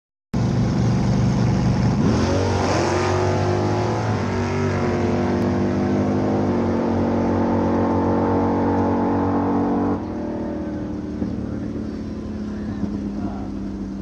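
A race car's engine, steady at first, then accelerating hard about two seconds in, rising in pitch with two sudden shifts, and cutting off about ten seconds in, leaving a quieter steady engine sound.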